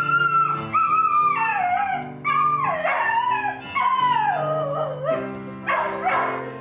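A dog howling over background music: several long howls, each held and then falling in pitch.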